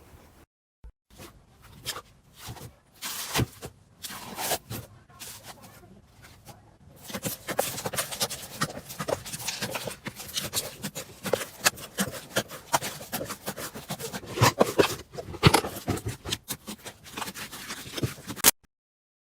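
Hands squishing and poking slime, making clicks and pops. The clicks are sparse for the first several seconds, turn into dense crackling about seven seconds in, and cut off suddenly near the end.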